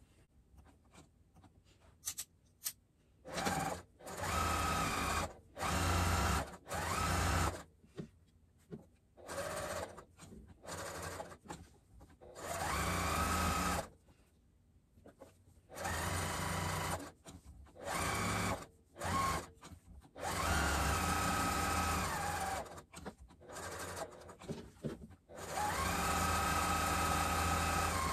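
Electric sewing machine topstitching in short stop-start runs of one to two seconds, its motor pitch rising each time it speeds up.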